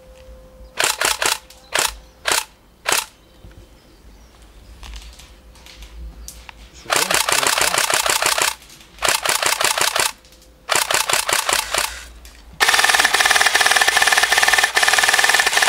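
Airsoft guns firing: a few single shots and short bursts at first, then several bursts of rapid full-auto fire. A long continuous burst of automatic fire starts near the end.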